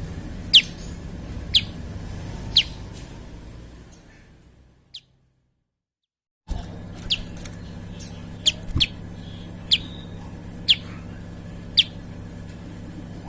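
Prenjak (prinia) calling: sharp, short notes that sweep down in pitch, about one a second. The calls fade out about a third of the way through, break off into a second and a half of silence, then resume over a low steady hum.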